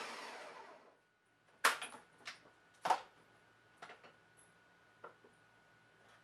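Ninja Professional blender motor winding down and stopping within the first second, then several sharp plastic clicks and knocks, the loudest two about a second apart near the middle.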